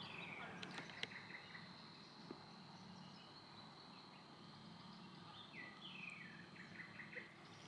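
Faint outdoor nature ambience: a bird calls in a run of short falling notes near the start and again about six seconds in, over a steady high insect drone.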